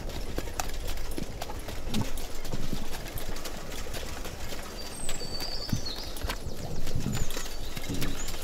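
Horse-drawn carriage ambience: hooves clip-clopping in an uneven rhythm, with a few short high chirps about halfway through and again near the end.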